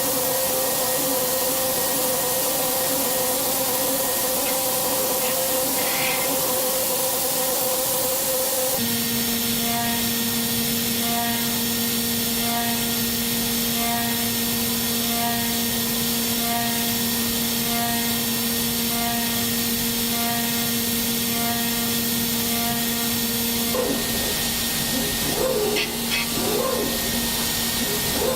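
CNC machining centre cutting an engine block: a steady whine over hiss. The pitch drops about nine seconds in, and irregular clattering and knocking come in near the end.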